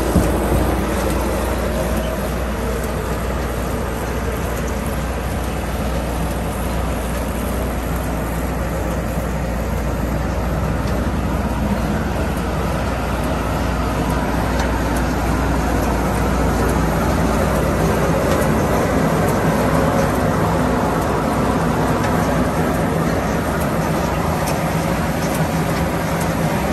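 2008 Oxbo BH100 bean harvester running in place, driven by its tractor: a steady mechanical drone with a low hum and clatter from its belts and turning pickup reel.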